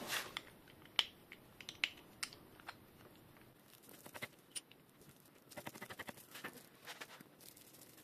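Light clicks and handling noises from hands working small plastic bleed parts on a bicycle hydraulic disc brake. Several sharp clicks come in the first three seconds, then a stretch of soft rustling and tapping.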